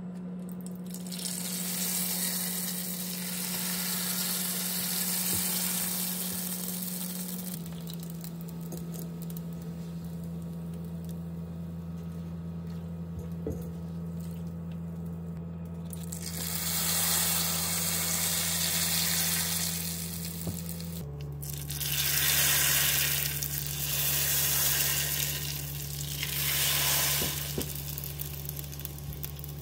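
Rice paper sheets frying in hot oil in a pan: several bursts of sizzling as sheets go into the oil and puff up, the loudest in the second half, with quieter stretches between. A steady low hum runs underneath.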